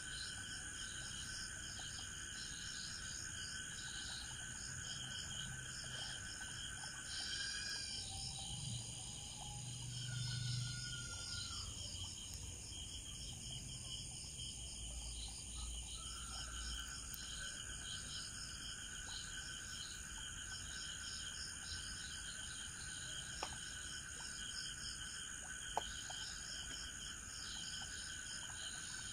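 Night chorus of crickets and other insects: steady shrill trilling over a fast pulsing chirp, with one lower trill dropping out for several seconds midway. Two brief clicks near the end.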